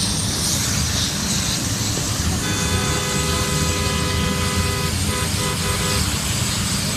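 A two-tone car horn blares, held for about two and a half seconds and then sounded in several short toots, over steady low street noise.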